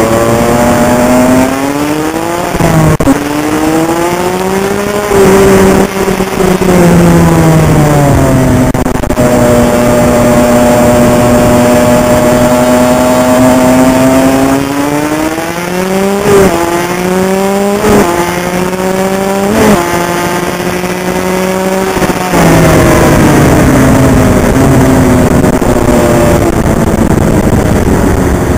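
Honda CR85's 85cc two-stroke single-cylinder engine revving under a rider, its pitch climbing and falling with the throttle. Partway through it climbs and drops sharply three times in quick succession as the rider shifts up through the gears, then runs louder near the end.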